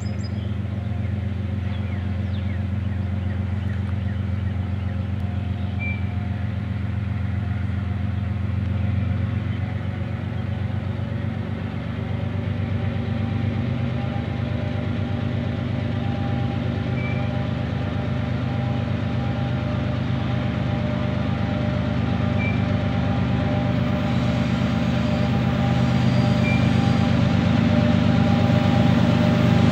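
Diesel locomotive engine running steadily as the freight train approaches slowly, a low hum with a steady higher whine over it, growing a little louder near the end.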